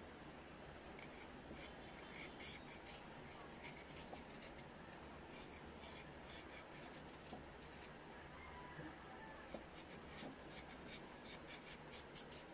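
Small kitchen knife shaving strips off a raw carrot held in the hand: a faint, irregular run of short crisp scrapes and snicks.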